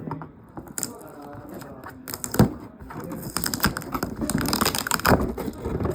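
Toy packaging being handled to free a remote control: a run of taps and clicks, a sharp knock about two and a half seconds in, then busy rustling and scraping.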